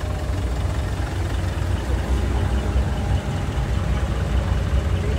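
Decorated truck (dekotora) engine idling, a steady low rumble.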